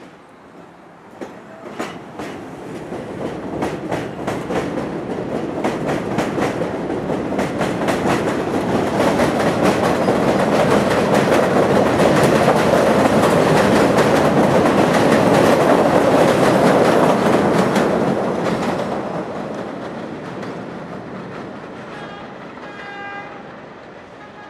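Vintage IRT subway train on an elevated line pulling out and passing close by. Its wheels clatter over rail joints and switches, growing louder to a peak as the cars go past, then fading as it moves off. A brief high-pitched tone sounds near the end.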